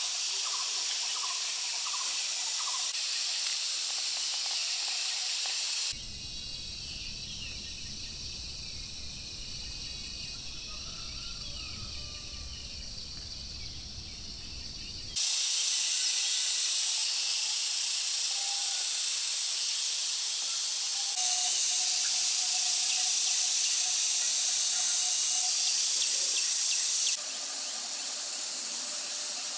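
Steady high-pitched outdoor hiss that changes abruptly several times, with a few short bird chirps at the start. For a stretch in the middle the hiss drops away and a low rumble takes its place.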